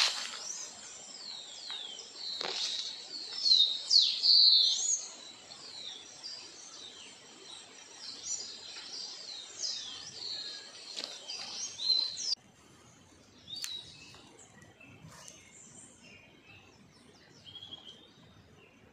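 Birds chirping and calling rapidly, many short quick whistled notes sliding up and down over a steady high-pitched tone. About twelve seconds in the sound cuts off abruptly to a quieter background with a few faint calls.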